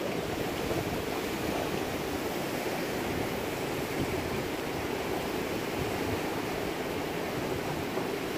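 Steady rushing of river water: an even, unbroken noise with no pauses.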